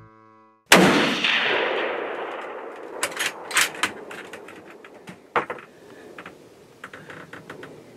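A single gunshot at a deer, echoing and dying away over a few seconds, followed by faint scattered clicks.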